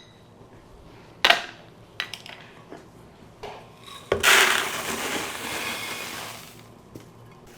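Rolled oats pouring from a bag into a glass storage container: a dry, rushing hiss lasting about three seconds that slowly tails off. It is preceded by a single knock and a few light clicks as the container and bag are handled.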